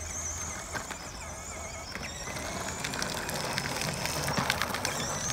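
Rollplay BMW R1200GS ride-on toy motorcycle, now running on a 12-volt battery instead of its stock 6-volt, driving with its small electric motor and gearbox running and its plastic wheels rattling over the driveway. It gets steadily louder as it approaches.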